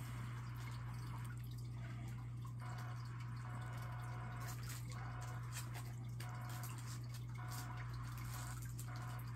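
Steady low hum with faint hiss; no clear event stands out.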